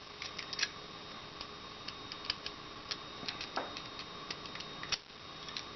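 Small metal clicks and scrapes as a screwdriver tip works the hammer spring plate of a Beretta 21A Bobcat pistol frame, nudging the plate toward its seat against hammer-spring tension. The ticks come at irregular intervals over a faint steady hum.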